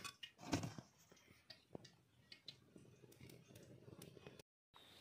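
Faint, scattered clicks and soft crunching from a hand squeezing and working cornflour and water together in an aluminium bowl, a little louder about half a second in.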